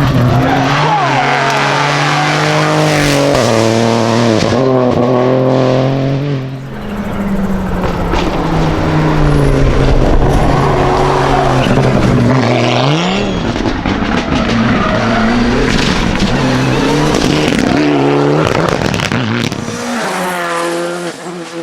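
Rally car engines at full throttle, the pitch climbing and dropping again and again with quick gear changes and lifts off the throttle, with a brief dip in loudness about six seconds in and a hard rev near the middle.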